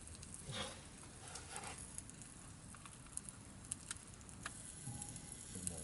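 Campfire crackling faintly, with scattered sharp pops over a low steady hiss.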